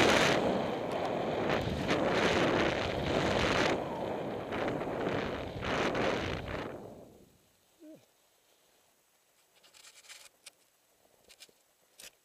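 Wind rushing over the microphone and skis hissing through deep powder snow during a fast descent, fading out about seven seconds in as the skier slows to a stop. Then near quiet with a few faint scrapes and clicks.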